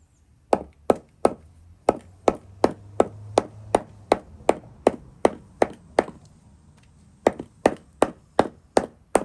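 Hammer pounding dried stingray on a wooden block: a steady run of sharp blows, about two or three a second, with a short pause about two-thirds through before the pounding resumes. The pounding tenderizes the dried fish.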